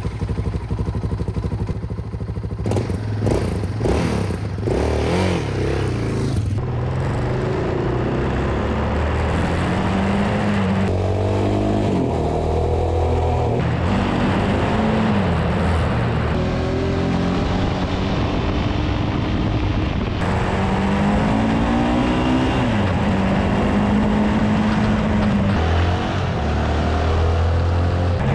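Single-cylinder sport ATV engine revving and accelerating through the gears, its pitch climbing and then dropping at each shift, several times over. Heard close up from a camera mounted on the quad, with steady wind and tyre noise underneath.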